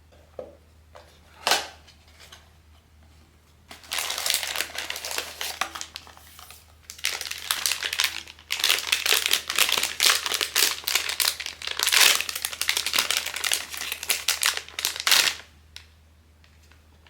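Plastic packaging of a POP MART blind box being handled and unwrapped: two sharp clicks at first, then about eleven seconds of dense crinkling with a few short breaks.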